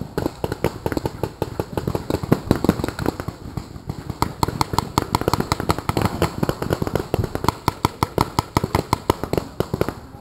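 Paintball markers firing in rapid succession: a steady run of sharp pops, several a second, coming more evenly from about four seconds in.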